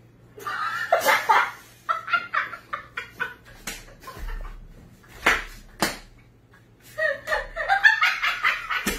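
A woman laughing in bursts, with a few sharp smacks a little after the middle.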